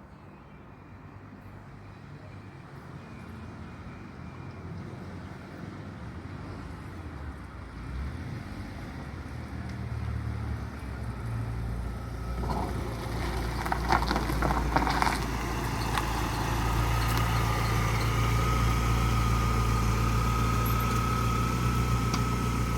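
Turbocharged Nissan SR20DET car engine growing steadily louder as the car comes closer, then running steadily close by with a thin high whine. A few short sharp sounds stand out in the middle.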